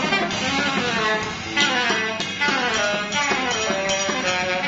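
Live instrumental music from a small band: a saxophone playing a moving line at the microphone over electric guitar, with bass, keyboard and drums behind.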